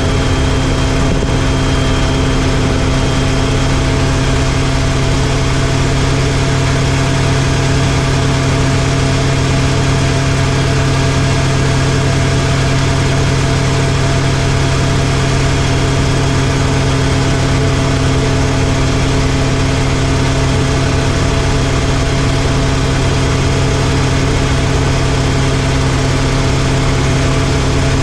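Rotorway kit helicopter in flight, its piston engine and rotor running at a steady cruise with a loud, unchanging drone.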